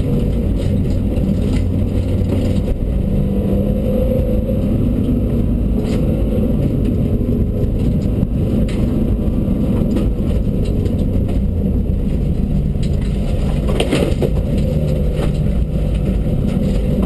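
Cabin noise of a Dacia Duster rally car driving down a rough gravel track: the engine runs steadily at low revs under a constant tyre and suspension rumble. A few sharp knocks from bumps come through, one about six seconds in, another near nine and a louder one around fourteen.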